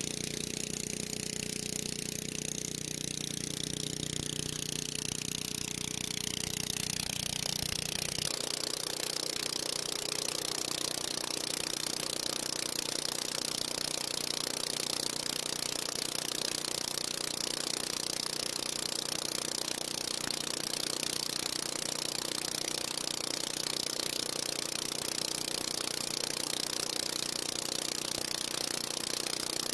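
Predator 301cc single-cylinder four-stroke engine running a walk-behind leaf blower, with the steady rush of air from the blower fan. About eight seconds in, the sound changes abruptly and the deep low end drops away; after that, engine and fan run on steadily. The engine is running without problems.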